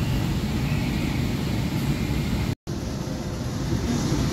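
Kolkata East-West Metro train running, heard from inside the carriage as a steady low rumble. The sound drops out completely for a split second about two and a half seconds in.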